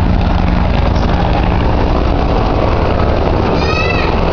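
Military helicopter flying overhead at a distance, its rotor and engine a steady low drone. Shortly before the end a brief high-pitched call cuts in over it.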